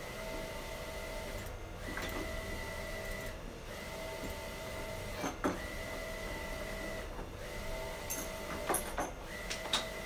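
Wide-format inkjet printer running: a steady whine that breaks off briefly every couple of seconds. A few light clicks and knocks come near the end.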